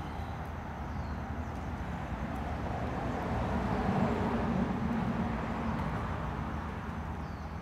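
Outdoor traffic noise: a vehicle passing on a nearby street, swelling and fading about four seconds in, over a steady background hum.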